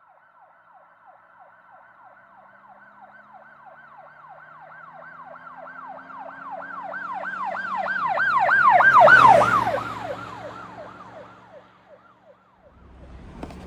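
Emergency vehicle siren in a fast yelp, about three rising-and-falling sweeps a second, over a low vehicle hum. It grows louder to a peak about nine seconds in and then fades, its pitch dropping as it passes by.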